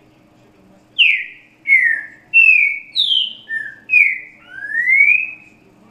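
Green-winged saltator (trinca-ferro) song in the 'grego boca mole com boi' pattern, the song used to tutor young birds. It is a phrase of seven loud, clear whistled notes, most sliding downward, ending in a longer rising whistle.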